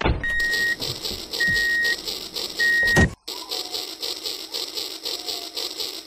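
Battery-powered toy steam train running on plastic track with a steady, rhythmic running noise. Three short high electronic beeps sound about a second apart in the first half, followed by a knock, and then the running goes on.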